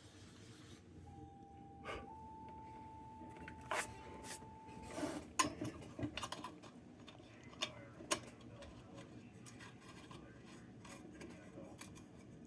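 Light clicks and knocks of a tin lantern's metal parts being handled and fitted together, with faint rubbing, and a faint steady high tone for about four seconds near the start.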